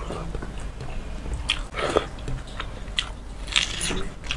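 Close-miked eating by hand: wet mouth sounds, chewing and sharp, crisp bites of panta bhat, rice soaked in water, with a few crunches.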